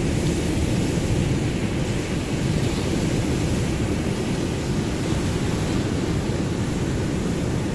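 Ocean surf washing continuously in a steady, deep rush, with no single wave standing out.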